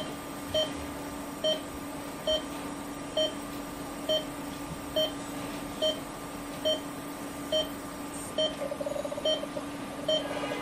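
Short electronic beeps from endoscopy-suite equipment, repeating evenly a little more than once a second over a steady hum. About eight seconds in, a faster fluttering tone at the same pitch joins them.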